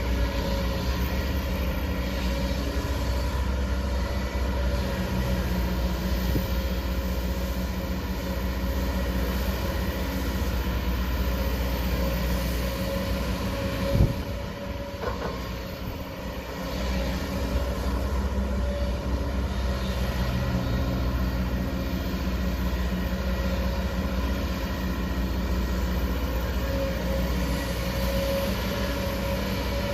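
Diesel engine of a 20-ton Kobelco hydraulic excavator running steadily under digging load. A single sharp knock comes about halfway through, after which the engine eases off briefly and then picks back up.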